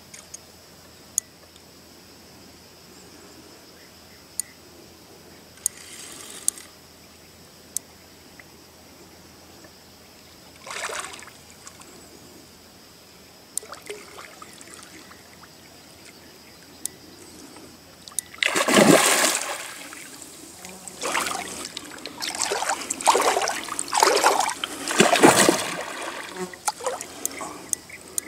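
A hooked carp splashing and thrashing at the water's surface as it is played in, in short bursts at first and then in several loud bursts over the last ten seconds. A few sharp clicks come earlier.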